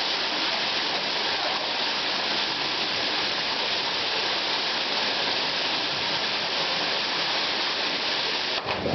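Waterfall pouring steadily into a pool, a constant rushing of water.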